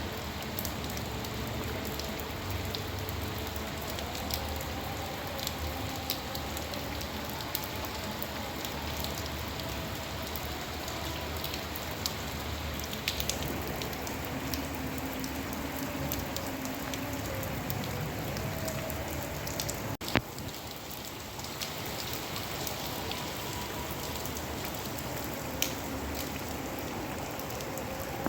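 Steady rain falling, with scattered individual drops ticking sharply over an even hiss. One sharp click stands out about two-thirds of the way through.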